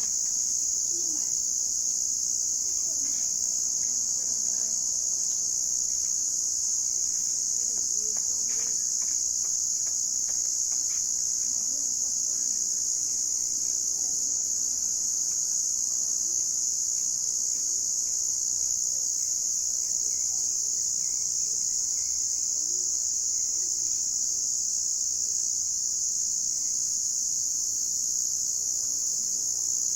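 Crickets chirping in a dense evening chorus, a steady high-pitched trill without a break.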